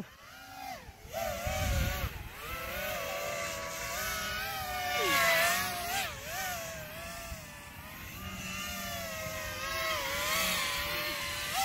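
Brushless motors of a 5-inch FPV quadcopter whining, the pitch rising and falling continuously with throttle as it swoops around. It is loudest about five seconds in.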